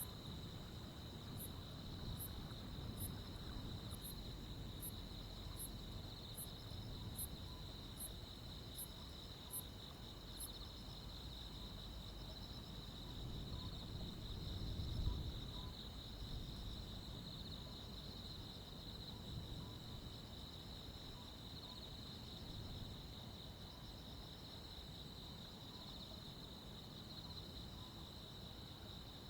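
Crickets and other insects at night: a steady, unbroken trill, with one insect adding a short, very high chirp about every three-quarters of a second that stops about ten seconds in. A faint low rumble of background noise lies underneath.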